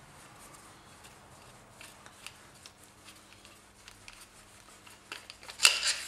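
Hands unscrewing the hydraulic lock piece from a motorcycle fork's damper shaft: faint rubbing and scattered light clicks of metal parts, with a louder burst of handling clatter near the end.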